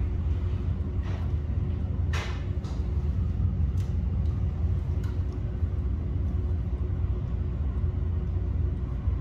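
Steady low rumble and hum inside a standing MBTA Green Line light-rail car, with a few light clicks and a brief louder rattle about two seconds in.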